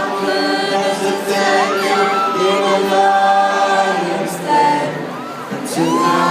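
Stadium crowd singing a held, wordless melody together, many voices on sustained notes, with higher shouts and whistles sliding over it. The sound thins briefly shortly before the end, then swells again.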